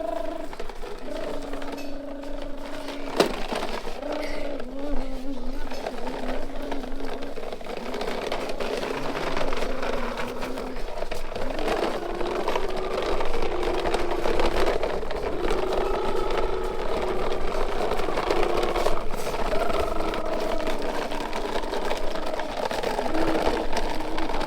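Heavy construction machinery engine running steadily under work, a droning hum that wavers and rises in pitch about halfway through, with a single sharp click a few seconds in.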